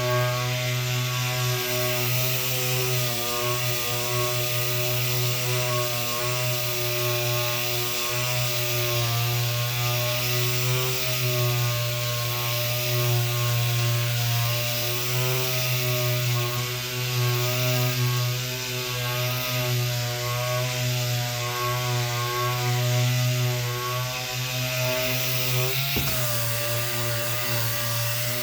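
Electric sander running steadily with a slightly wavering pitch, sanding wood filler. A brief knock near the end, with a momentary dip in pitch.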